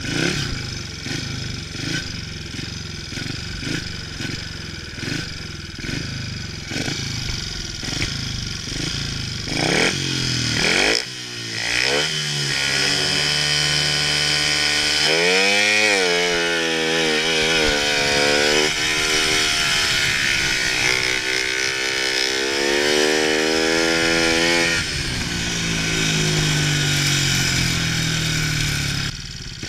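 Speedway bike's 500cc single-cylinder methanol engine running hard under the rider, its pitch repeatedly climbing and dropping as the throttle is opened and eased through the laps. It settles lower near the end.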